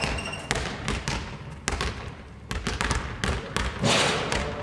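Basketballs bouncing on a sports-hall floor: a string of irregular sharp thuds that ring in the large hall, with a louder burst of noise about four seconds in.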